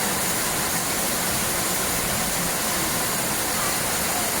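Steady rushing roar of falling water, an even hiss with no changes.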